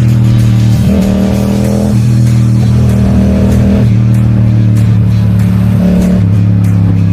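Background music with sustained bass and guitar notes that change pitch abruptly about once a second, and a regular beat of light hits in the second half.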